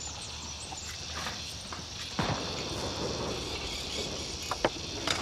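A steady, high-pitched chorus of insects, with a louder scrape about two seconds in and a few sharp clicks near the end.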